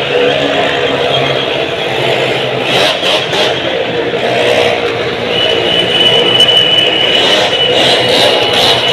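Several motorcycle engines running loudly and revving as the bikes circle the vertical wall of a wooden wall-of-death drum. A steady high tone joins about five seconds in.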